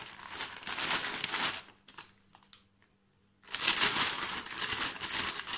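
Plastic salad bag crinkling as it is handled and shaken to tip out the leaves. It comes in two spells with a pause of about a second and a half between them.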